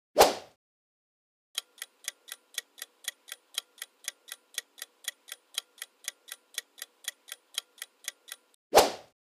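Tick-tock countdown timer sound effect: even clock-like ticks, about four a second and alternating louder and softer, run for about seven seconds while the guessing time counts down. A short sound effect marks the start of the count, and another comes near the end.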